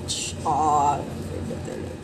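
A brief voice sound with a wavering pitch, like a short hummed or sung note, about half a second in, after a short hiss.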